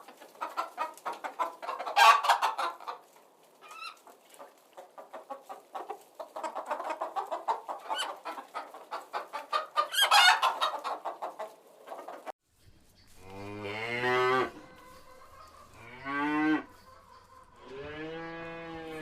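Hens clucking in a rapid stream, with louder cackles about two seconds in and again around ten seconds. The clucking stops, and a cow moos three times in the second half.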